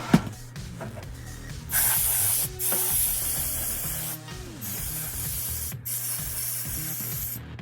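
Loud hissing spray in several long blasts with short breaks between them, after a sharp click at the start, over background music.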